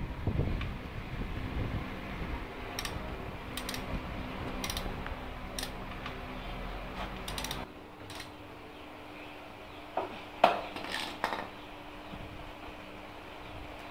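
Socket wrench and metal hand tools clicking and clinking against a Honda Dream 110cc motorcycle engine as fasteners are worked: single sharp clicks about a second apart, then a few louder metal clinks near the end, over a low steady hum.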